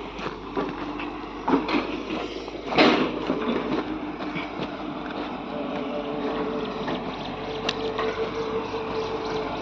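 Hitachi excavator's engine and hydraulics running with a steady whine, while rock and soil knock and clatter in the bucket. The loudest knocks come about one and a half and three seconds in.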